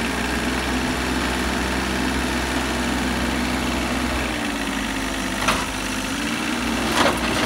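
Kubota KH-027 mini excavator's diesel engine running steadily under load as the machine crawls down a trailer ramp onto gravel, its note sagging briefly about four seconds in. A sharp knock comes about five and a half seconds in and another near the end.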